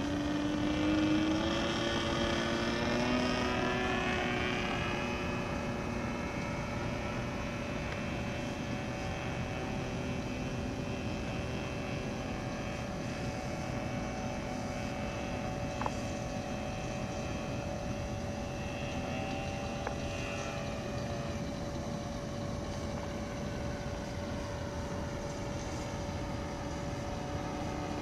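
Radio-controlled scale model of the Zlin Z-50 aerobatic plane flying overhead, its motor and propeller droning. The pitch slides down over the first few seconds as it passes, then the drone holds steadier and more distant, with another pitch shift as it manoeuvres later on.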